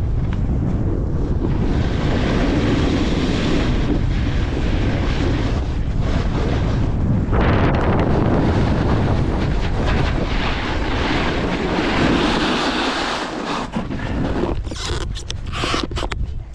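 Wind buffeting the action-camera microphone while snowboarding downhill, mixed with the hiss of the snowboard's edges scraping and carving through the snow in long swells. Near the end the rush dies down into scattered scuffs and knocks as the rider comes to a stop.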